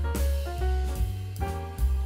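Instrumental background music: a melody of stepping notes over a steady bass line and a drum beat.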